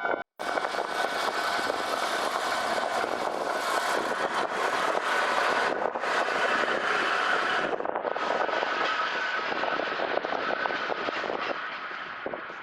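Diesel railcar of the Kominato Railway passing close by: a steady rush and rumble of engine and wheels on the rails, easing off a little near the end.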